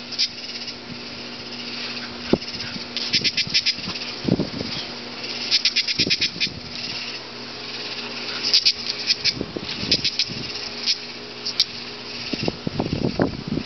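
Katydid stridulating in short bursts of rapid, high-pitched clicking pulses, repeated every second or two.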